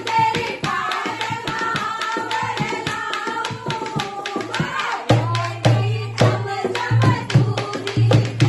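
Hindi devotional bhajan: a dholak playing a fast, steady hand-drum beat under singing and a melody line. The drum's deep strokes grow heavier about five seconds in.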